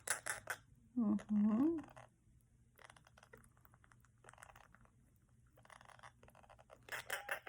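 Baby Indian ringneck parakeets eating vegetable chop: sharp clicks of beaks against the feeding spoon and dish at the start and again near the end, with faint scratchy crunching in between.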